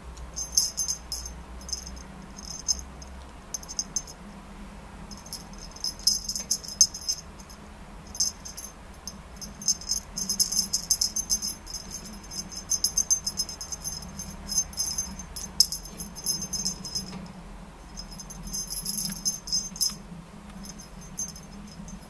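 Small bell or rattle on a cat teaser wand toy jingling in short, repeated bursts as it is shaken and batted, over a faint steady hum.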